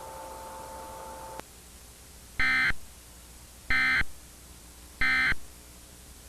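Emergency Alert System end-of-message signal: three short, loud bursts of screechy digital data tones about 1.3 seconds apart, marking the end of the alert. Before them, a faint steady two-note tone cuts off about a second and a half in.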